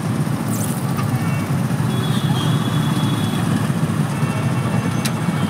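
Vehicle engine running with a steady low rumble, heard from inside the cabin while stopped or creeping. A faint thin tone sounds for under a second about two seconds in, and a sharp click comes near the end.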